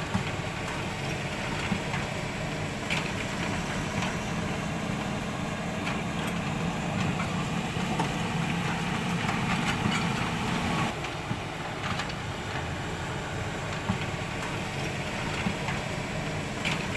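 Steady engine idling sound, a low even drone with scattered light clicks and knocks. The drone eases a little about eleven seconds in.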